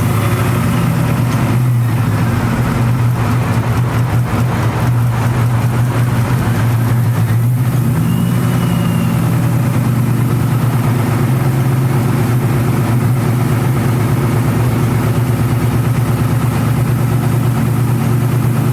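Supercharged 1996–98 Ford Mustang SVT Cobra V8 idling steadily just after start-up, with a brief rise in revs about eight seconds in.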